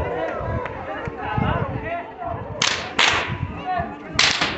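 Rope whips cracking three times: two sharp cracks in quick succession about two and a half seconds in, and a third near the end, over a crowd's chatter.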